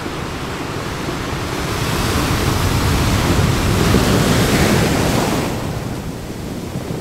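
Surf: foaming seawater washing up the beach, a rushing hiss that swells to its loudest about four seconds in and then eases off.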